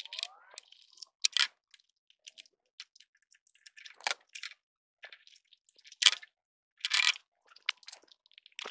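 Old metal-and-glass exterior wall light fixture being taken off its wall box: scattered metallic clinks and taps at irregular moments, with a short scrape about seven seconds in.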